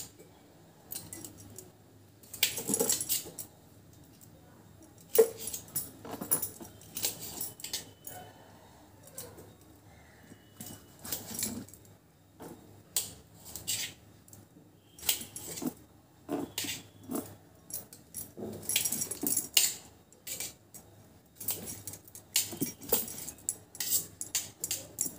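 Kitchen knife cutting tomatoes on a stainless steel plate: irregular clicks and taps of the blade against the metal, with bangles on the wrist jingling as the hand moves.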